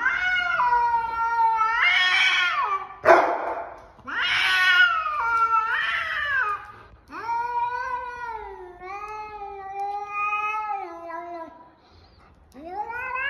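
Cat yowling: three long, wavering, drawn-out calls and the start of a fourth near the end, with a brief noisy burst about three seconds in. This is the angry caterwaul of a cat squaring up to another cat.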